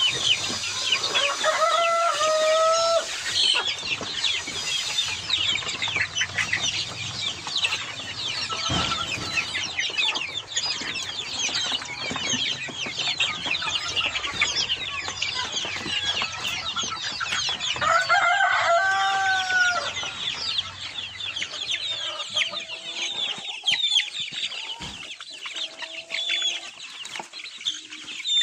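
A flock of chicks and young chickens peeping and cheeping constantly in high-pitched calls. A longer, lower chicken call stands out about two seconds in, and another around eighteen seconds in.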